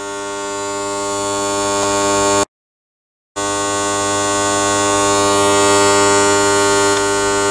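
Starter motor cranking a 3.5 L 24-valve V6 (EGG) engine with its spark plugs out for a compression test, a steady buzzing whir at an even pitch. It cuts out completely for about a second a little over two seconds in, then resumes.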